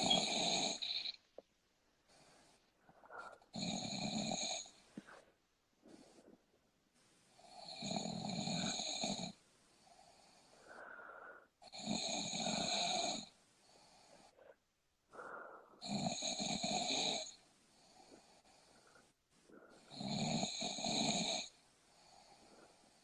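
A person snoring in steady sleep: six loud snores come about every four seconds, each lasting one to two seconds, with softer breaths in between.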